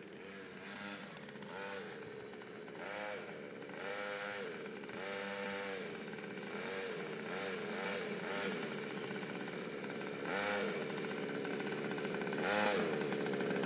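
Quad bike (ATV) engine being revved in a run of short blips, each a quick rise and fall in pitch, growing louder toward the end.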